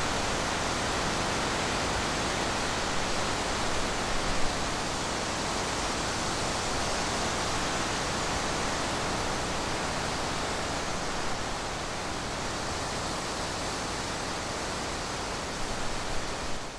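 Steady, even rushing hiss with no distinct sounds in it, cutting off abruptly at the end.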